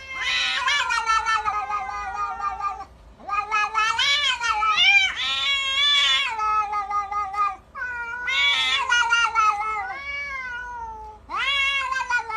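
Domestic cats yowling at each other in a fight standoff: long, wavering caterwauls that rise and fall in pitch, in several drawn-out stretches with short breaks between them.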